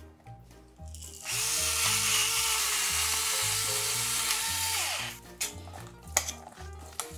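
Electric pepper mill grinding black pepper for about four seconds: a steady motor whine under a gritty grinding hiss, the whine dropping in pitch as it stops. Light spoon clinks against a stainless-steel bowl before and after.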